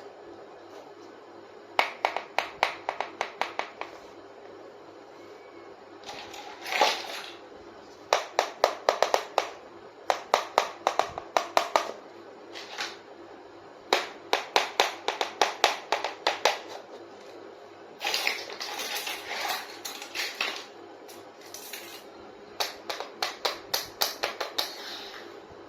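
Toy kitchen dishes and utensils tapping and clinking together in quick runs of taps, several a second, broken by short pauses.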